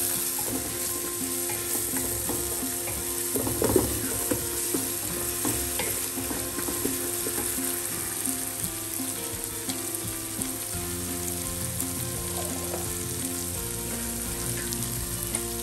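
Onions, spices and tomato paste sizzling as they fry in a pot, with a spoon stirring and clicking against the pot. There is a sharp knock about four seconds in.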